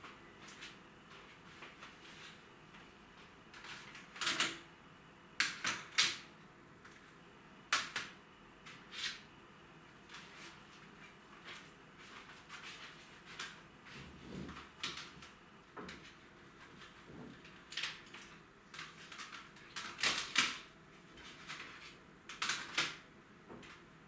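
Irregular knocks, clicks and rustles of household objects being picked up, handled and set down on a kitchen counter, with a duller knock midway.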